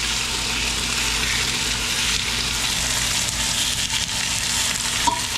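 Pieces of chicken frying in butter in a very hot pan, a steady sizzle. A single brief click comes near the end.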